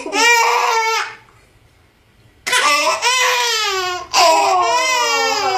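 A baby crying: a short wail, a pause of about a second and a half, then two long wails that rise and fall in pitch.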